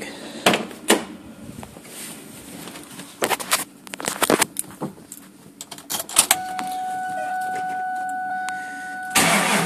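Sharp clicks and rattles, as of keys being handled, then a steady electronic warning tone held for about three seconds. In the last half second the 2002 Mustang GT's 4.6-litre V8 cranks and starts.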